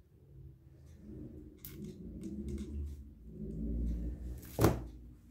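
Handling noise from fabric being pressed and rubbed on a cutting mat while it is hot-glued, a low rustling and rubbing. A sharp knock about four and a half seconds in, as the hot glue gun is put down on the table.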